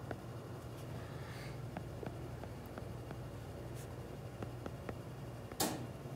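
Handwriting on an iPad touchscreen: a scatter of small taps and ticks over a steady low hum. One louder, brief rustle comes about five and a half seconds in.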